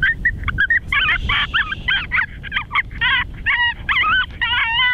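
Electronic predator caller playing canine distress sounds: high, wavering whimpers and yips in quick succession, packed closer together and more regular toward the end.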